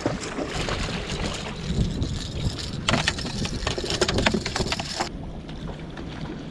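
Wind on the microphone and water splashing beside a small boat as a hooked bluefish thrashes at the surface. A cluster of sharp splashes comes about three seconds in, and about five seconds in the high hiss drops away.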